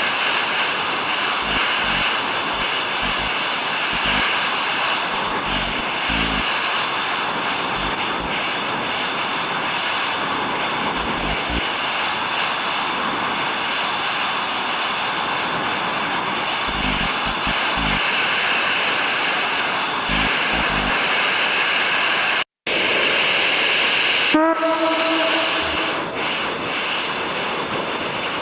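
Analog television static: a steady, loud hiss of white noise that cuts out for a split second near the end, then comes back with a buzzing tone over it.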